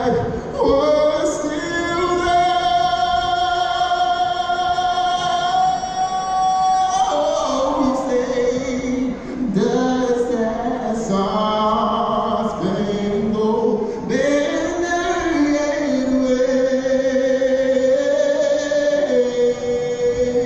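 Slow singing in a soccer stadium, with men's and women's voices holding long notes of several seconds each.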